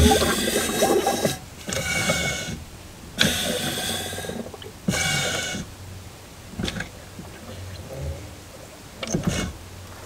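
Air bubbling and gurgling out of homemade bleeder hoses into the brake fluid in a Chevy Avalanche's master cylinder reservoir, in four strong bursts, one per pedal stroke, then fainter ones. It is the sign of air being purged from the master cylinder during an in-vehicle bleed.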